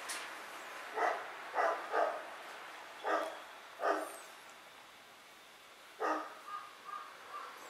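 Shih Tzu barking: six short barks spread over the first six seconds, then a few softer whining yips near the end.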